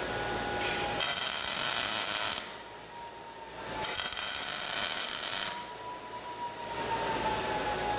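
MIG welder laying two short tack welds on steel tubing, each a crackling, sizzling arc about a second and a half long, the first starting about a second in and the second near the middle.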